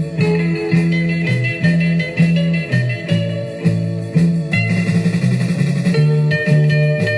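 Guitar-led blues-style music with a steady, repeating bass line.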